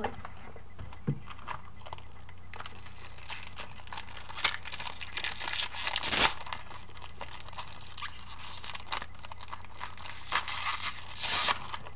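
Trading-card pack wrapper being torn open and crinkled by hand: a run of tearing and crinkling that starts about two and a half seconds in, loudest around the middle and again near the end.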